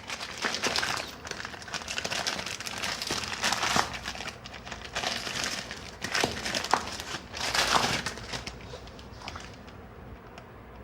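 Packaging crinkling and rustling in irregular bursts as the parts of a door closer kit are handled during unboxing, dying down near the end.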